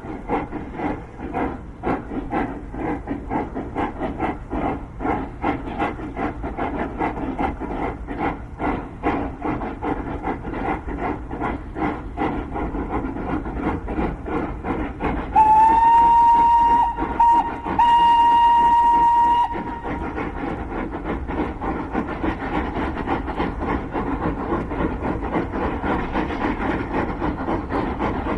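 Two narrow-gauge steam locomotives, a South Australian Railways T class and a 400 class Garratt, exhausting in a steady rapid chuffing as they haul a heavy loaded ore train up a steep grade. About halfway through, a steam whistle sounds, a long blast broken by a brief gap and then held again for a couple of seconds.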